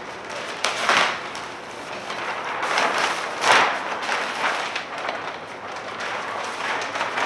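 Plastic vapor-barrier sheeting rustling and crinkling as it is lifted, shaken out and handled. It is loudest about a second in and again around three and a half seconds.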